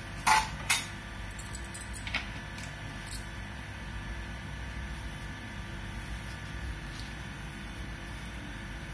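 Metal clinks from steel kitchenware: two sharp ones in the first second, then a few lighter ones until about three seconds in. After that there is only a steady low hum.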